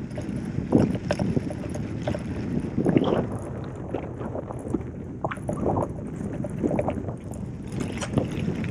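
Gravel bike rolling over a dirt and gravel road: a steady tyre rumble and crunch, with irregular knocks and rattles from bumps, the loudest about a second in and again about three seconds in.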